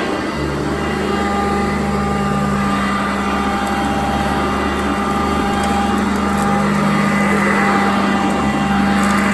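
Sanitaire upright vacuum cleaner running steadily on carpet, a constant motor hum whose lower tone shifts a few times.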